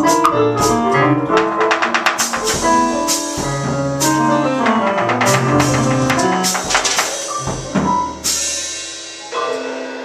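Free-improvised duet of digital piano and drum kit: piano figures over busy drumming with cymbals, and a cymbal crash about eight seconds in that rings and fades as the playing thins out.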